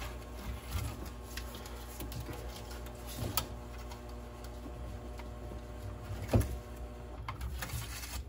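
Nylon zip tie being pulled tight through its locking head, a steady ratcheting buzz, with a few sharp knocks about three seconds in and again near the end.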